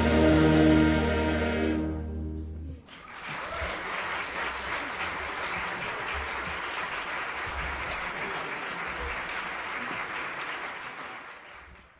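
Choir and jazz big band holding the song's final chord, which cuts off about three seconds in. Then an audience applauding steadily, fading out near the end.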